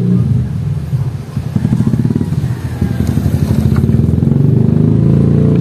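Electric massager's vibrating motor running, a steady buzzing hum with a fast pulse that dips briefly about a second in. The loose motor has just been wedged tight with a shim, and it runs without its rattle.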